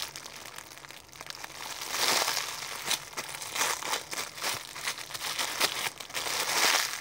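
Clear plastic bag crinkling in a series of rustles as a pink tiger squishy toy sealed inside it is handled and squeezed.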